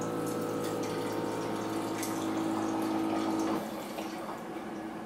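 SkyBar wine dispenser pouring: a steady pump hum as wine streams from the spout into a glass, cutting off suddenly about three and a half seconds in.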